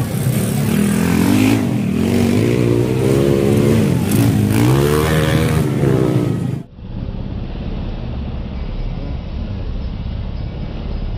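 Dirt-bike engines revving loudly, their pitch climbing and falling again and again as the bikes accelerate and shift. About six and a half seconds in the sound cuts abruptly to a quieter, steady drone of motorcycle engines running further off.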